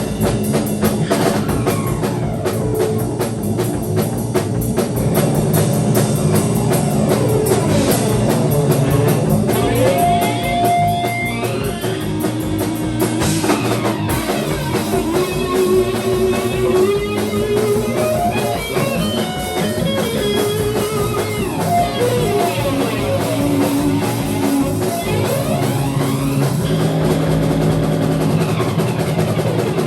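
Instrumental rock jam: a drum kit keeps a steady beat under guitar playing sustained notes and riffs, improvised without vocals.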